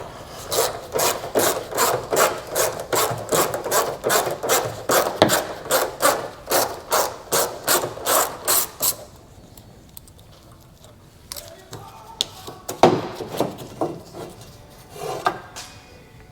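Hand ratchet working a screw loose in quick, even back-and-forth strokes, about three rasping clicks a second, which stop about nine seconds in. A couple of sharp knocks of metal parts being handled follow near the end.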